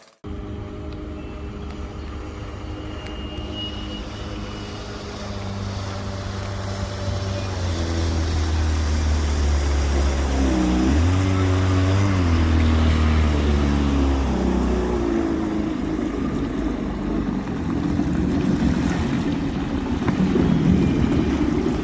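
Small boat's restored engine running under way. Its pitch rises about eight seconds in and wavers for a few seconds, then gives way to rushing water and wind noise. The owner says the engine, rebuilt without new parts, runs weakly.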